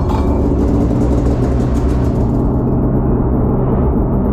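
Snowmobile engine running at a steady speed, a loud, even drone, with a sharp click right at the start.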